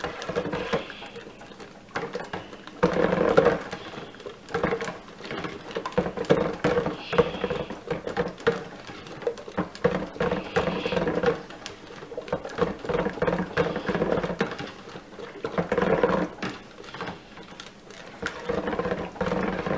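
Immersion (stick) blender mixing lye solution into oils in a stainless steel pot for cold process soap, its motor run in short bursts that start and stop every second or two. The blender head clicks and knocks against the pot between bursts.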